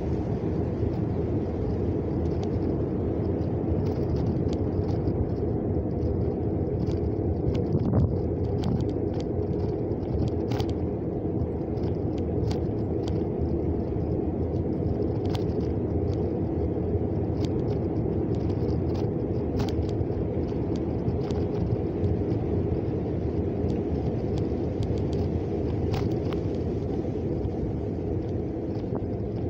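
Steady low rumble of a vehicle driving along a road, mostly road and tyre noise, with a few light clicks or knocks scattered through, the sharpest about eight seconds in.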